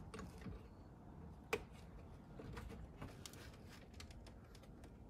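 Faint handling of small plastic parts with a few light clicks, one sharper click about a second and a half in: plastic spacers being pressed into the holes of a radio dash kit's mounting bracket.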